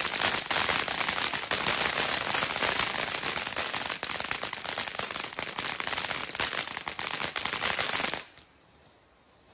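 Consumer fireworks going off in a rapid, unbroken string of pops and crackles, like a firecracker string. The noise stops abruptly about eight seconds in.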